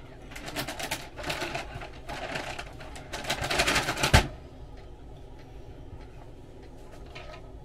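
Close-up chewing and crunching of a sandwich, in about four bursts of crackly clicks that stop a little over four seconds in.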